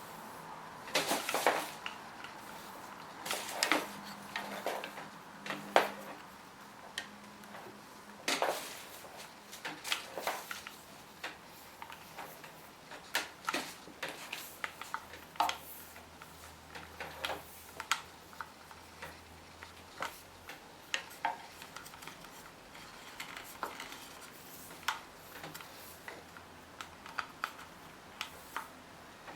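Irregular light knocks and clicks of hard objects being handled, the louder ones in the first ten seconds, then smaller ticks about once a second.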